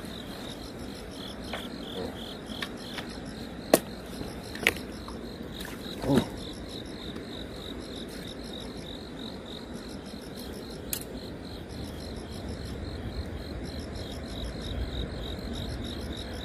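Insects chirping steadily in a fast, even pulsing rhythm, with a few sharp clicks over it, the loudest about four seconds in.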